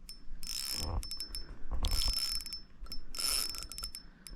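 Fishing reel's drag clicking as a hooked fish pulls line off: three spurts of rapid ratcheting, the middle one longest, with single clicks between. The fish is running hard against the drag.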